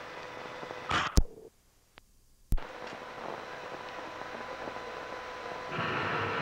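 Steady tape hiss and faint hum from a PXL 2000 camcorder's cassette soundtrack. About a second in there is a short rush of noise and a sharp click, then the sound drops almost to nothing for about a second before a second sharp click brings the hiss back, as the recording cuts out and restarts. The hiss gets louder near the end.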